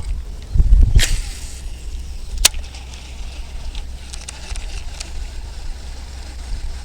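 Strong wind buffeting the microphone, a steady low rumble, with a louder gust about half a second in. Two sharp clicks, about one second and two and a half seconds in.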